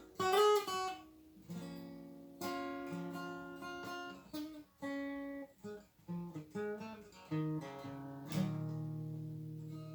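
Acoustic guitar played solo: short phrases of single plucked notes, one note bent upward about half a second in, then a chord struck about 8 seconds in that rings and slowly fades.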